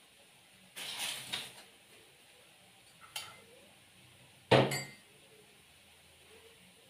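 Kitchen dishes and metal cutlery clattering: a short jumble of clinks about a second in, a single clink a little after three seconds, and a louder, ringing clank about four and a half seconds in.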